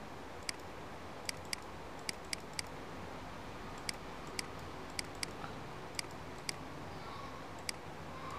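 Computer mouse clicking: about a dozen short, sharp clicks at uneven intervals, some in quick pairs, over a faint steady hiss.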